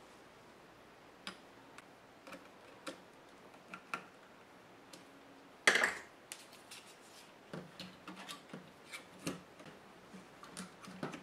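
Light clicks and taps of small plastic and metal laptop parts and hand tools being handled during disassembly, scattered throughout, with one louder clatter a little past halfway and a quicker run of small clicks after it.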